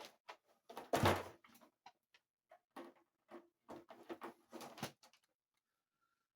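Plastic parts of a toy hockey game being handled and fitted: a run of irregular clicks and knocks, the loudest about a second in, then a pause near the end.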